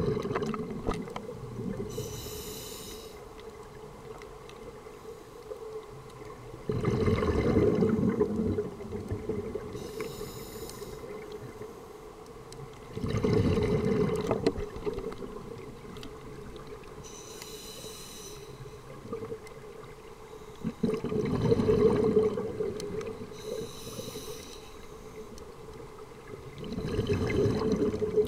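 Scuba diver breathing through a regulator: four slow breaths, each a short high hiss on the inhale followed a few seconds later by a louder surge of bubbling exhaust on the exhale.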